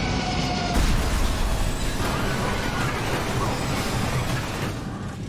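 Dramatized crash-landing sound effects of a large jet: a loud, dense low rumble and roar that jumps up with a heavy hit about a second in, with music underneath.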